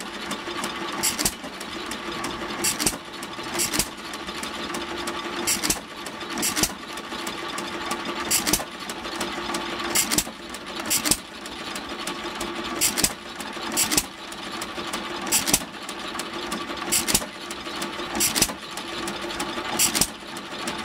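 Arco hit-and-miss gas engine running under load, belted to a Straub grist mill grinding corn: a sharp exhaust bang every one to two seconds at uneven spacing, with steady mechanical clatter and hum between the firings as the flywheels carry it along.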